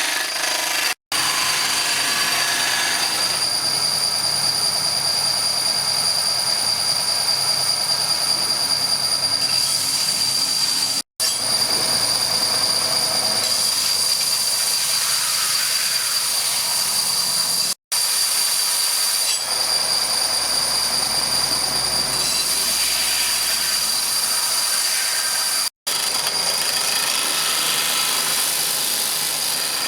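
Electric grinder working the steel of a circular saw blade, a steady high whine over a harsh grinding hiss. It breaks off abruptly four times and resumes at once.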